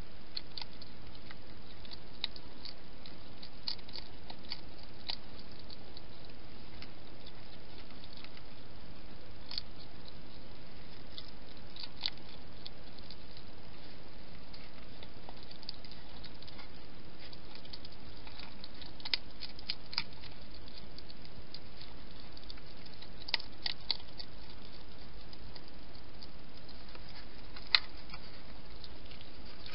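Hedgehog feeding: scattered soft clicks and crunches, a few louder ones and one sharper click near the end, over the steady hiss of the camera microphone.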